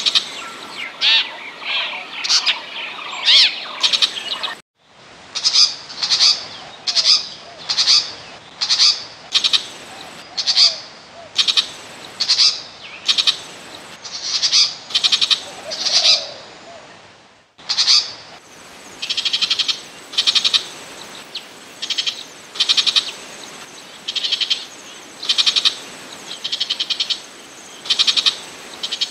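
Burmese shrike giving short, harsh rattling calls, repeated evenly about every three-quarters of a second. The calls break off briefly twice, about 5 s and 17 s in, where the recording is spliced.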